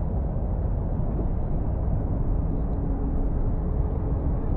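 Union Pacific Big Boy 4014, a 4-8-8-4 articulated steam locomotive, working toward the listener under steam, heard as a steady low distant rumble. A faint steady tone joins about two seconds in.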